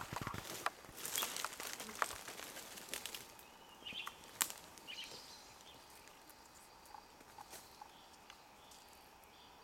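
Crackling and rustling of leaf litter and foliage close to the microphone, a dense run of sharp crackles in the first few seconds that thins out to a faint outdoor background with a few small ticks.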